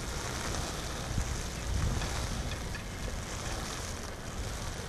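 Steady outdoor noise: a low, unsteady rumble with a fainter hiss above it, no distinct events.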